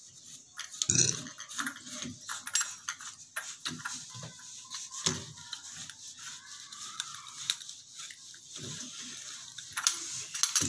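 Chrome-plated brass shower mixer fittings clinking and scraping against each other as the union nuts and cover cups are worked onto the wall connectors by hand: irregular small metallic clicks and knocks.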